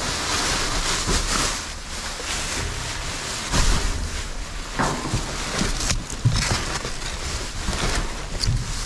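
Rustling and a few scattered knocks as things in a dumpster are moved about and handled, over a low wind rumble on the microphone.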